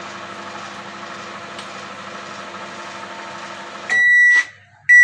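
LG microwave oven running with a steady hum, its newly fitted magnetron heating a cup of water. Near the end the hum cuts off as the timer runs out and the end-of-cycle beep sounds, with a second beep starting right after.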